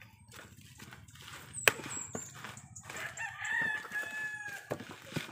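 A rooster crowing: one long, pitched call about three seconds in, lasting about a second. Before it, a single sharp knock, the loudest sound, with a few softer knocks near the end.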